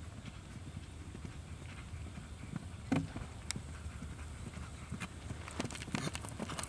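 Hoofbeats of a horse cantering on turf, with a single louder thump about three seconds in; the hoof strikes come through more clearly and quickly near the end.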